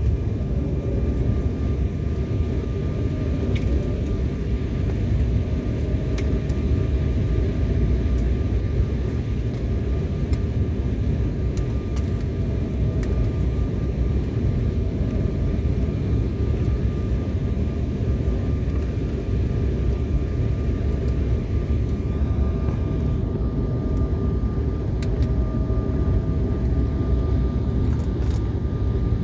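Jet airliner cabin noise on final approach and landing: a steady rumble of engines and rushing air with a faint steady whine above it. The higher hiss eases near the end as the plane reaches the runway.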